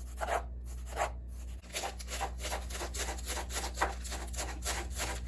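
Metal spatula scraping back and forth across a flat-top griddle, working bacon grease over the cooking surface: slower strokes at first, then quicker, about three or four a second, from about two seconds in.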